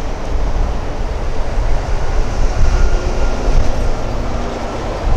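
Union Pacific local freight train rolling slowly away down the track: a steady, uneven low rumble and hiss from its cars.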